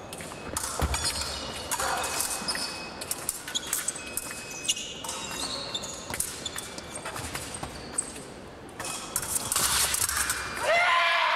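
Épée fencing in a large hall: footwork thumping on the piste and blades clicking and clashing with brief metallic rings. Near the end a fencer lets out a loud shout.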